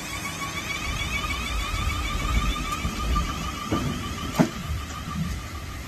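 South Western Railway Class 450 Desiro electric multiple unit moving off, its traction equipment whining with a steady tone and warbling higher tones over a growing rumble of wheels. A single sharp clank comes about four and a half seconds in.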